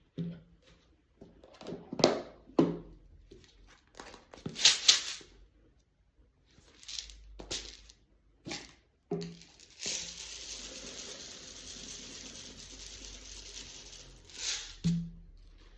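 Plastic wrapping of a microwave popcorn bag crinkling and tearing as it is opened, with handling clicks and knocks. About ten seconds in, a steady hiss starts and runs for about five seconds, ending with a knock.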